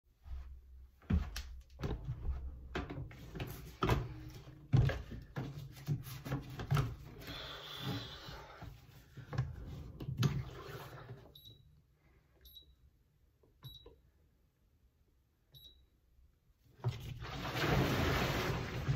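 Knocks and thumps of equipment being handled, then four short, evenly pitched electronic beeps from a rowing machine's monitor. About seventeen seconds in, a steady rushing, watery swish starts: a water rowing machine being rowed.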